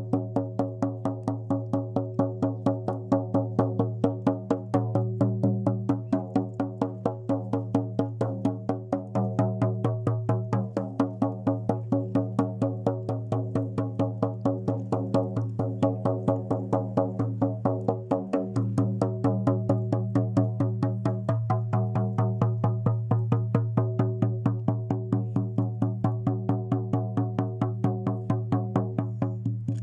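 Music: a fast, steady drumbeat of about four strokes a second over a low, unchanging drone.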